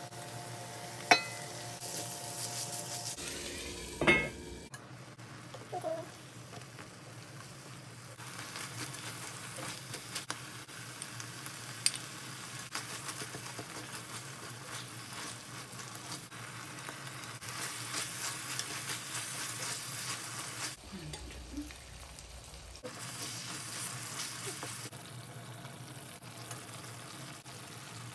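Lamb pieces and onions frying with a steady sizzle in an enamelled pan, stirred with a spatula. There is a loud clatter about four seconds in and a couple of sharp clicks.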